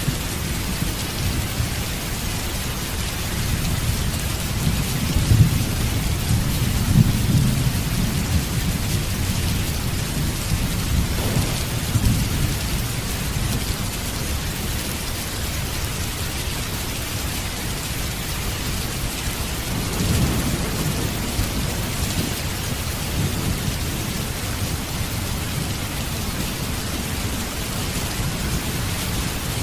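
Steady rain with rolling thunder: low rumbles swell about a quarter of the way in and again around the middle of the stretch.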